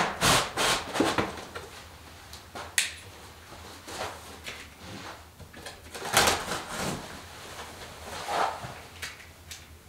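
A large cardboard shipping box being cut and torn open at its top: irregular scraping, ripping and rustling of cardboard and packing tape in short bursts, several sharper than the rest.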